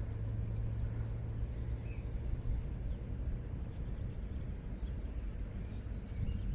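Outdoor ambience: a steady low rumble with faint, scattered bird chirps now and then.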